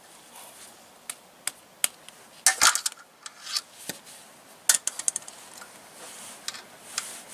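Steel hand tools clinking: an Allen key and a box-end wrench tapping against each other and the metal bracket, in scattered sharp clicks with short clatters about two and a half and five seconds in.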